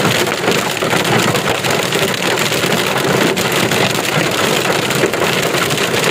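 Hail and heavy rain pelting a car's windshield and roof in a dense, steady clatter, heard from inside the car.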